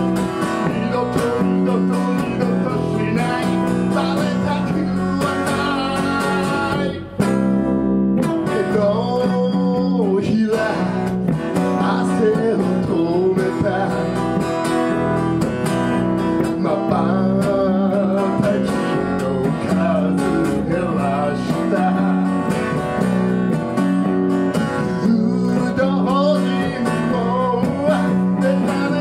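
Live band playing a song on electric bass and strummed acoustic guitar, with singing. The music breaks off briefly about seven seconds in, then comes straight back in.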